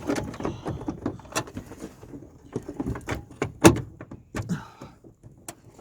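Plastic headlight housing being worked into its mount in a car's front end: a string of irregular knocks, clicks and plastic rattles, the loudest knock about two thirds of the way through.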